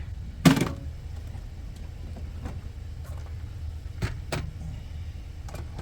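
Hand tools being rummaged for a wrench: one sharp metallic clank about half a second in, then a few lighter clicks and knocks, over the steady low rumble of an idling truck.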